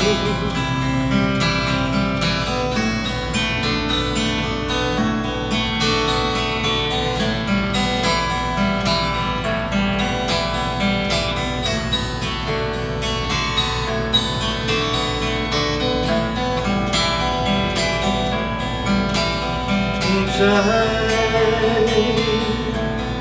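Acoustic guitar played as an instrumental break between sung verses, with a man's singing voice coming back in near the end.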